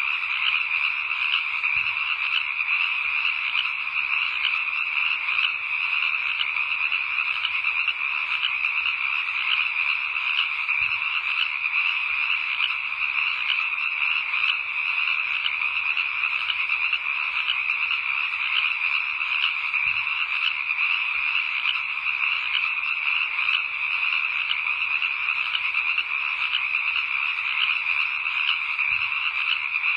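A dense chorus of many frogs calling at once, an unbroken, fairly high-pitched trilling that holds the same level throughout.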